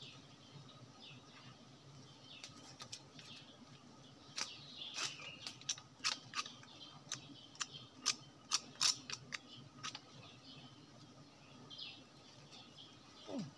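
A run of sharp clicks and snaps, bunched between about four and ten seconds in, as a wild honeybee comb is cut and broken away from a tree branch. Faint bird chirps come before and after, and a short falling swoop comes near the end.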